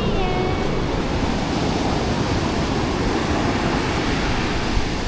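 Ocean surf washing onto the beach, a steady loud rush of waves, with wind rumbling on the microphone.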